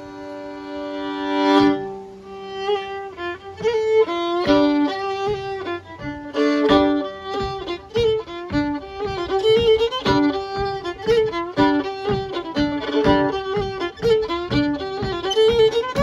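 Fiddle and acoustic guitar playing traditional Celtic folk music. A held chord swells, then about two seconds in they break into a brisk, evenly pulsed tune led by the fiddle.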